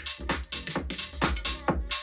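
Electronic dance music with a drum-machine beat, about four hits a second over heavy bass, played back through a JBL portable Bluetooth speaker in a sound test.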